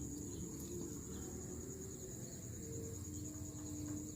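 Insects trilling steadily at a high pitch over a low background rumble.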